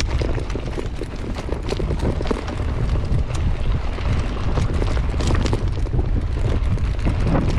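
Mountain bike rolling downhill over a rough dirt and gravel track, heard from a handlebar-mounted action camera: wind buffets the microphone over a steady low rumble. Frequent sharp clicks and rattles come from the tyres striking stones and the bike shaking over the bumps.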